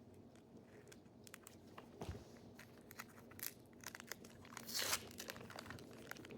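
Trading-card pack wrapper being torn open by hand, faintly crinkling and tearing, with a louder crinkle near the end.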